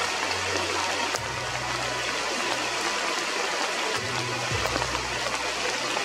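Shallow stream rushing steadily over rocks through small riffles, under background music of low held notes that change every couple of seconds.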